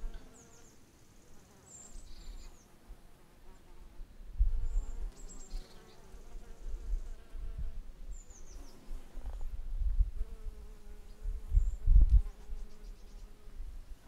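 A bee buzzing in flight, its wavering hum coming in strongly from about a third of the way through. Low rumbling bursts come and go underneath, loudest near the end.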